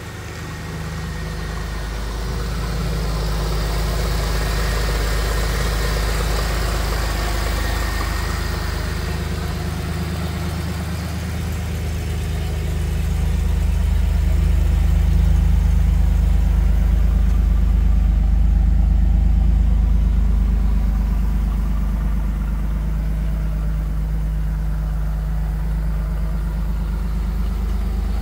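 1991 Pontiac Firebird's V6 engine idling steadily, a low hum that swells a little about halfway through.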